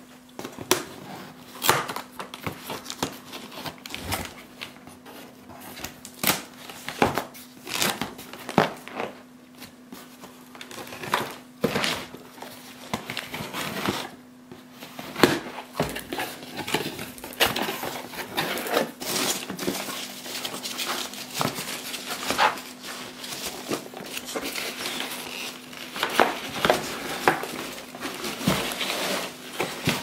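Packaging being handled and opened: crinkling and rustling with frequent irregular clicks and knocks, over a steady faint hum.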